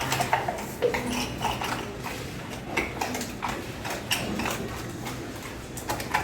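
A Labrador dog making irregular light clicks and taps, just after being given a biscuit as a reward.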